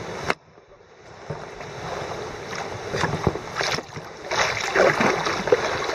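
Water splashing and sloshing around a kayak on fast, flooded river water, with scattered knocks and paddle splashes. The sound cuts off sharply just after the start, then builds up again and grows busier in the second half.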